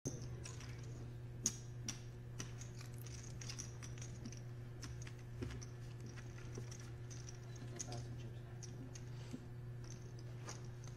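Poker chips clicking against each other in scattered short clicks as they are gathered and stacked, over a steady low hum.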